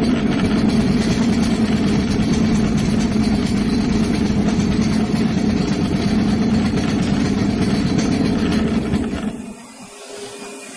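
Wheels rolling over a hard tiled floor, a steady rumble that fades out about nine seconds in as the rolling stops.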